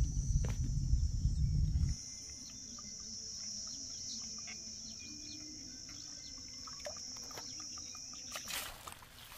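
Open-air ambience over water: insects drone steadily on one high pitch, with scattered bird chirps. Wind rumbles on the microphone for about the first two seconds, and near the end the drone gives way to a burst of rushing, splashy noise.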